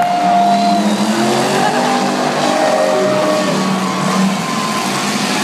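Several race cars' engines running and revving together as they circle the track, heard at a distance from the grandstand.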